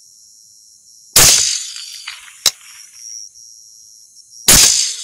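Two rifle shots at feral hogs, about three seconds apart, each followed by a fading echo, with a single sharp click between them.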